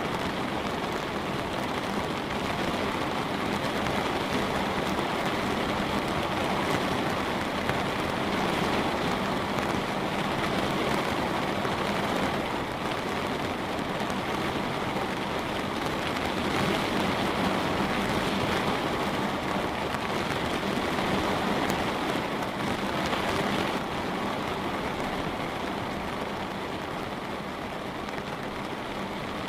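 Light rain pattering steadily on a window, easing slightly a few seconds before the end.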